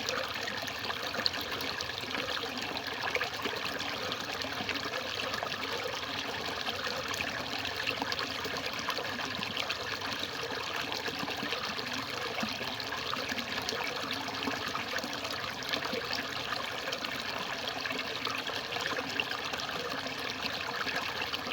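Water trickling and splashing steadily, with many small drips and splashes running together into a continuous patter.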